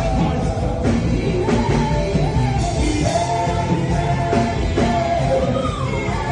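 Worship music: voices singing over a full band accompaniment with a steady drum beat.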